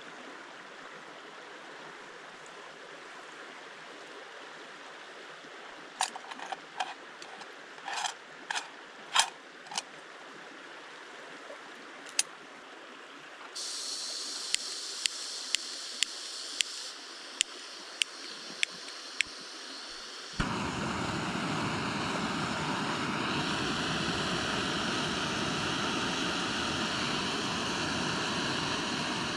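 Portable gas canister camping stove being lit: the valve opens with a hiss, the igniter clicks about nine times, then the burner catches about two-thirds of the way through and burns with a loud steady rush. Earlier, a stream flows steadily under a few sharp clinks of a cup being handled.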